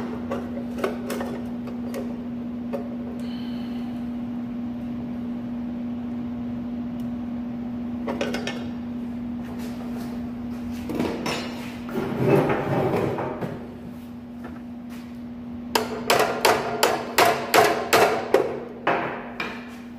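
Small sledgehammer tapping the steel vise of an abrasive chop saw, about a dozen quick metal knocks near the end, nudging the vise into its 45-degree setting. A metallic clatter comes around the middle, over a steady low hum.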